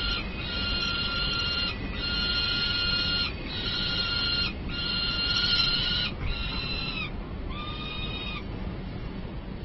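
Juvenile peregrine falcon begging: a string of long calls, each held at one steady pitch, following one another with brief gaps. The last two are shorter and lower, and the calling stops near the end. A steady low rumble runs underneath.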